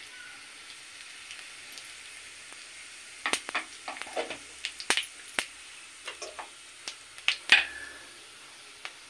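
Cumin seeds and a bay leaf sizzling in hot oil in a kadhai, the tempering step of an Indian curry. From about three seconds in, scattered sharp clicks break in over the quiet sizzle, the loudest near the end.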